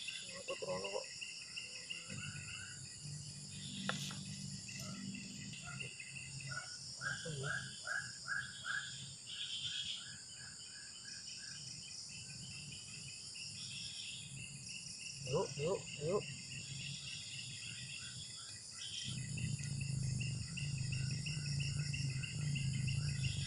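Steady high-pitched insect chorus, with a run of short repeated chirps about a third of the way in and a low rumble coming up near the end.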